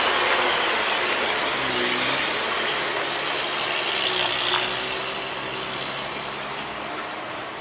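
Old Toyota 'buaya' dump truck, loaded with limestone, pulling up a gravel hill road with its engine running under load. The sound fades steadily as the truck moves away.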